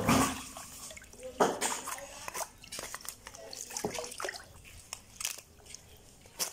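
Water splashing and dripping as raw duck carcasses are rinsed and handled in a tub of water, loudest right at the start, followed by scattered short wet slaps and clicks of handling and knife work on the carcass.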